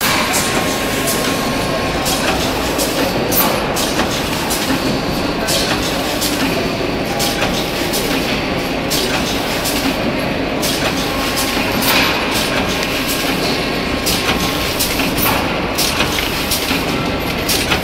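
Rotary bag-feeding pouch packing machine running: a steady mechanical clatter with many short clicks and knocks from its turntable and bag grippers.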